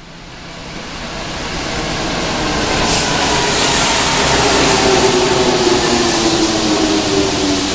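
Rubber-tyred Paris Métro Line 4 train running into the station, its rumble growing louder over the first few seconds and then holding as the carriages pass. A whine over it falls slowly in pitch.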